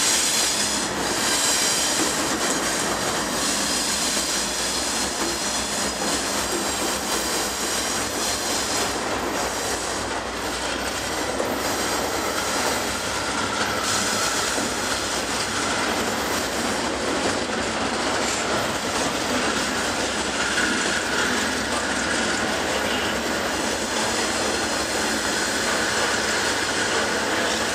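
Long freight train passing close by, its locomotives and then intermodal flatcars loaded with truck trailers: a steady, loud rumble of steel wheels rolling over the rails. A thin high squeal from the wheels comes in around the middle.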